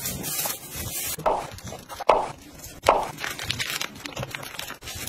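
Thin plastic food bags crinkling and rustling as they are handled, with three sharper crackles about a second apart.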